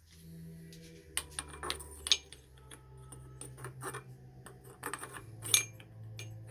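Sharp metal-on-metal clinks and knocks, about six irregular strikes, as a new centre bearing is driven onto a Holden Commodore tailshaft using the old bearing and a metal pipe. A steady low hum sits underneath.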